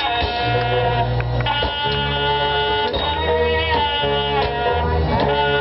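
Loud music with a plucked-string melody over a bass line that changes note about once a second.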